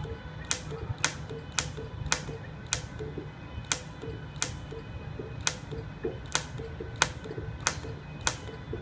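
Sharp, irregular clicks, about one to two a second, over a steady low hum, from a home-converted TIG welder built from a ZX7-250 inverter stick welder being test-run.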